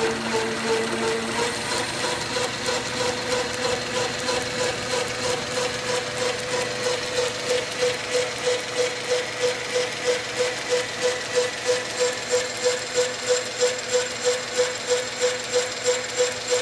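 South Bend metal lathe running under power: a steady mechanical hum with one strong tone that pulses evenly, about two or three beats a second, from the turning spindle, flat belt and gears. The pulsing becomes more pronounced after the first couple of seconds.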